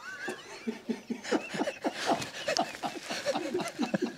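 A man laughing, a quick run of short chuckles.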